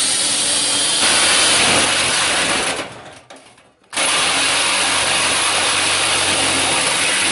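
Cordless drill boring through a galvanized steel trash-can lid. About three seconds in it stops, and a moment later a jigsaw starts and runs steadily, cutting an opening in the lid for a dust-collection pipe.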